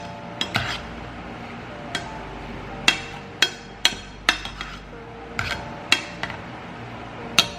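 Potato masher knocking against a saucepan while boiled potatoes are mashed. About a dozen sharp, irregular knocks, each with a short metallic ring, roughly one every half second.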